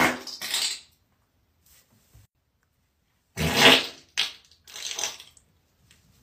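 Farting: one burst right at the start and a louder one about three and a half seconds in, followed by two shorter bursts, with near silence between the first and second.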